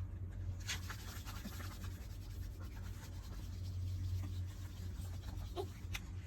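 Faint scratching and rubbing, with a brief louder scrape under a second in, over a steady low hum.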